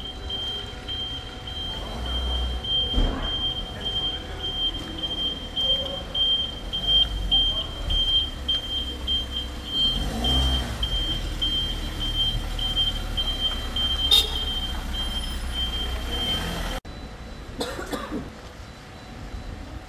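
Vehicle engine running at idle with a low rumble, over a thin, high, rapidly pulsing tone. Both cut off suddenly about seventeen seconds in.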